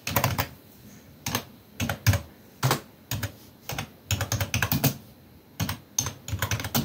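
Typing on a computer keyboard: sharp key clicks in irregular bursts, with quick runs of strokes about the middle and near the end.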